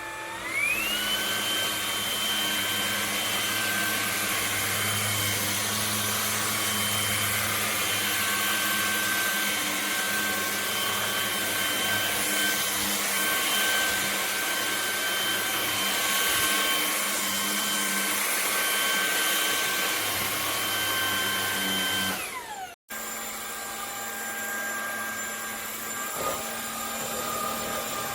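MONSGA MV3 cordless stick vacuum's motor running with a steady high whine over rushing air. It comes up to speed in the first second and winds down with a falling whine about 22 seconds in. After a brief cut it runs again, quieter, with a different whine.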